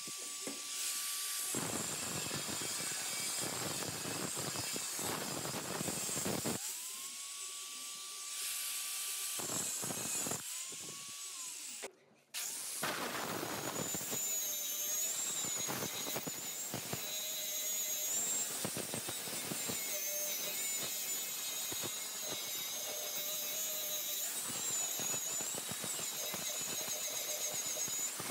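Electric angle grinder grinding rusty sheet steel: a high whine while it spins free, turning into a harsh grinding rasp each time the disc bites in. It spins back up to the whine twice, cuts off abruptly about twelve seconds in, then grinds on steadily.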